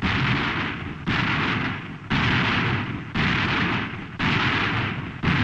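3-inch 50 caliber rapid-fire naval gun firing at full speed, about one shot a second, six shots in all. Each report starts sharply and dies away slowly until the next one.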